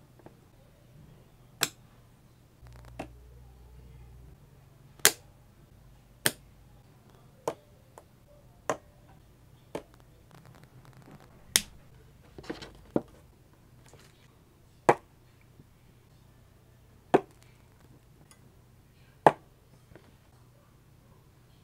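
Battery spot welder firing through handheld electrode pens, welding nickel strip onto 18650 lithium-ion cells: about a dozen sharp snaps, irregularly one to two seconds apart.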